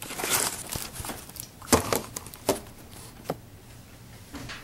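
Handling noise from the camera being moved and set down by the stove: a run of irregular knocks and clunks with rustling and crackle between them, the loudest knock a little under two seconds in.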